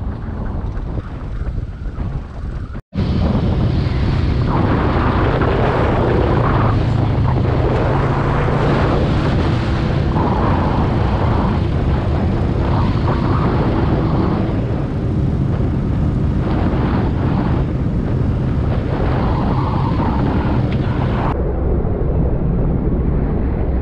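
Quad bike (ATV) engine running steadily on the move, with strong wind noise on the microphone. About three seconds in, the sound drops out for an instant and comes back louder.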